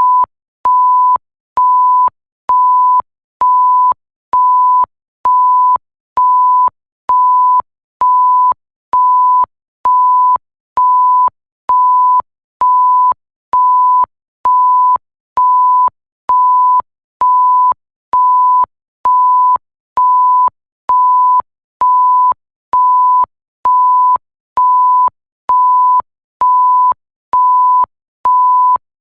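Electronic bleep tone, a single pure high-pitched tone beeping on and off at a steady pace of about one beep a second, each beep about half a second long with a faint click at its start and stop.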